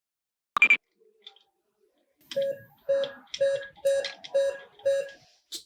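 A sharp click, then six evenly spaced electronic beeps, about two a second.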